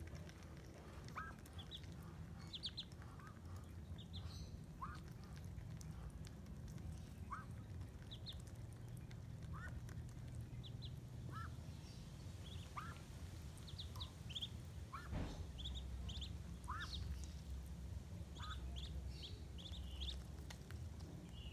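Ducklings peeping: short rising chirps repeated every second or two, over a steady low rumble. A single knock sounds partway through.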